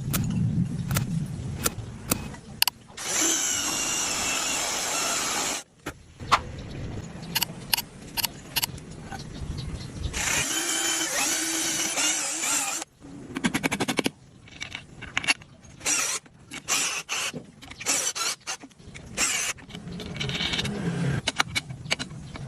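A power tool runs in two bursts of two to three seconds each, with many sharp knocks and clicks of handwork between them.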